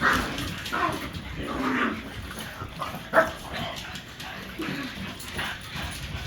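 French bulldog puppy barking and yipping in a string of short calls, the sharpest about three seconds in.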